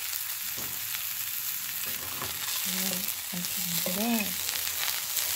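Hot oil sizzling steadily in a nonstick frying pan as a hotdog fries in it.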